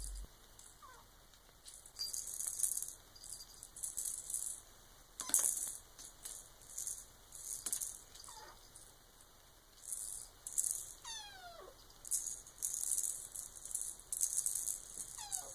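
A rattling cat toy shaken in irregular bursts as a kitten plays with it. About five short, high cries falling in pitch are the kitten meowing.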